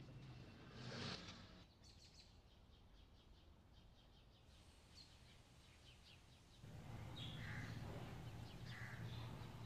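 Faint bird chirps, short and scattered, over quiet outdoor background noise. A low steady hum comes in about seven seconds in.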